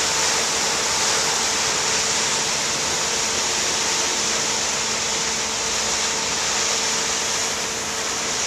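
Ferry propeller wash churning and rushing behind the stern as the vessel pulls away, over a steady machinery hum from the ship's engines with a constant low tone.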